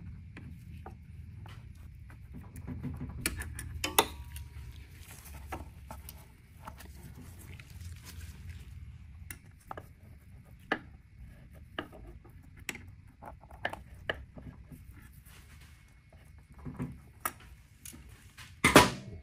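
Irregular clicks and clinks of a hand tool and metal parts being worked around an electric dirt bike's gearbox and motor mounts, over a steady low hum, with a louder knock near the end.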